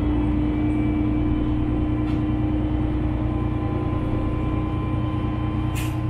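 KTR700 diesel railcar's engine running steadily with a constant low hum as the train pulls slowly away from the platform, heard inside the cabin. A brief sharp click near the end.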